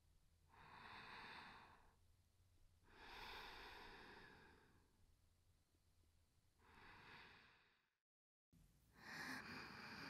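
Soft, close-miked female breathing for ASMR: four slow, sighing breaths, each one to two seconds long, with a brief dead drop-out just before the last.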